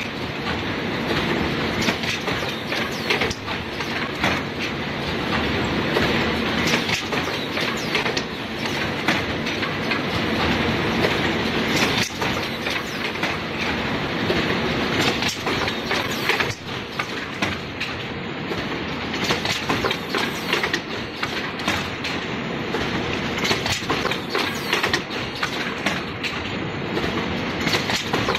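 CBM 900 cement bag making machine running at production speed: a steady, dense clatter of rapid mechanical clicks and knocks over a continuous whir.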